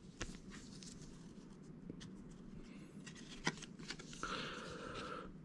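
Quiet room tone with a few faint, scattered clicks, and a faint steady whine that starts about four seconds in.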